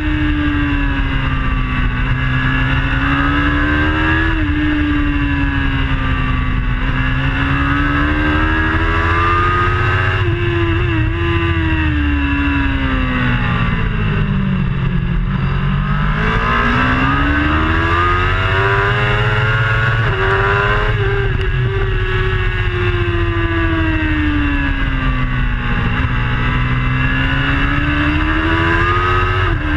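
Racing motorcycle engine at full race pace, heard from an onboard camera: its note rises and falls through the lap, dropping low about halfway through and climbing again, over a steady rush of wind.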